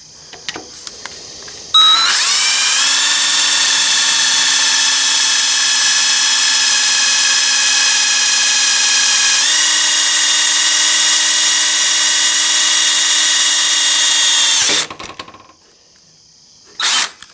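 Cordless drill with a 5/16-inch bit drilling through a cast aluminium footpeg bracket: the motor spins up about two seconds in, runs with a steady whine that steps up slightly in pitch partway through, and stops suddenly a few seconds before the end. A short knock near the end.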